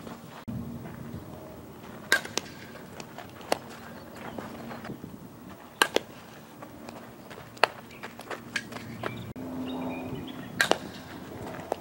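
Sharp cracks of a softball being hit off a bat and smacking into leather gloves, a handful spread a few seconds apart during an infield fielding drill.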